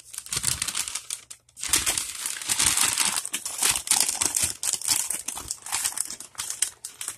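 Crinkly packaging being handled and unwrapped by hand, a dense run of crackles and rustles that grows louder about a second and a half in.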